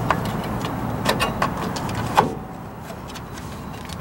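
Light metallic clicks and clinks of drum brake hardware being fitted by hand, about five in all, the loudest a little past two seconds in, over a steady low background rumble that drops away at about the same point.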